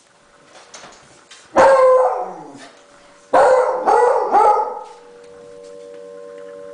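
Dog barking and howling in reaction to a tornado siren. One long bark trails down in pitch about a second and a half in, then three quick barks follow around the middle. A tornado warning siren holds a steady tone underneath, growing louder near the end.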